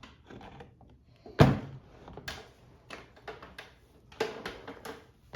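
Metal parts and tools being handled on a workbench: one loud thunk about a second and a half in, followed by a string of lighter knocks and clacks.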